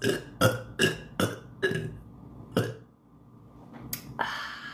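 A woman burping on purpose in a quick run of six short burps, most of them about two to three a second, over the first three seconds.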